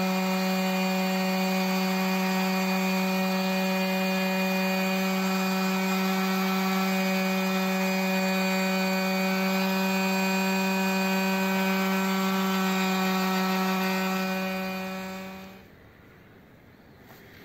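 Electric orbital sheet sander running steadily at one pitch with a hum, a small fatwood ring held against its sanding pad to smooth it. It is switched off near the end and the hum stops.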